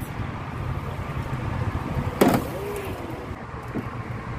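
An engine running with a steady low rumble, and a single sharp clunk about two seconds in.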